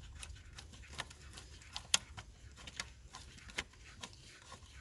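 Scattered light clicks and taps, irregular, of metal parts and hand tools being handled in the engine bay, over a faint low hum.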